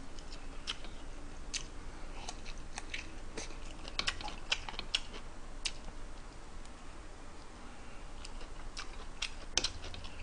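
Someone eating hot stew: faint, irregular clicks of a utensil against a bowl, with mouth sounds of chewing.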